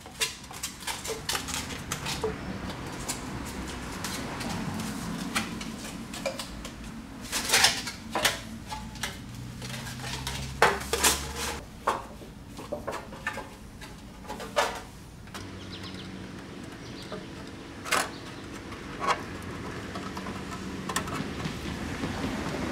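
Thin sheet-metal flashing being handled, bent and trimmed by hand: irregular metallic crinkles, clicks and clanks, some sharp and loud. A low steady hum joins a little past the middle.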